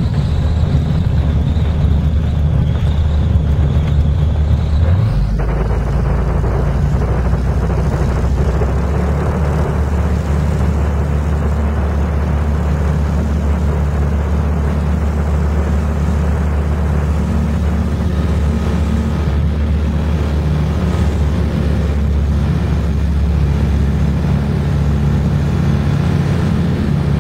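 Motor Falke motor glider's piston engine heard from inside the cockpit. Its note changes abruptly about five seconds in, then it runs steadily at takeoff power through the ground roll and climb-out of a touch-and-go.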